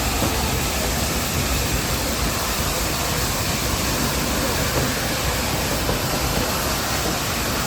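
Nilgiri Mountain Railway toy train running, a steady, even rushing noise with no clear rhythm.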